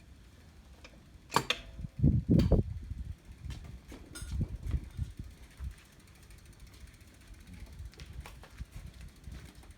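Hand tools working on metal during a supercharger pulley swap: a few sharp metallic clicks and clinks among dull knocks, settling quieter in the second half.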